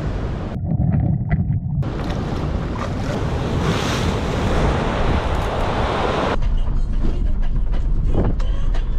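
Wind rushing over the microphone, a steady surf-like roar with a low buffeting rumble. It changes abruptly twice: for about a second near the start it thins to a low rumble, and about six seconds in it drops to a duller, deeper rumble.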